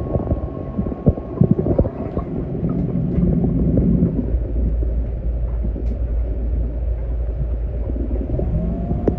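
Robotic pool cleaner running underwater: a steady low motor rumble with a thin whine. There are a few knocks and clicks in the first couple of seconds, and a lower whine sets in near the end.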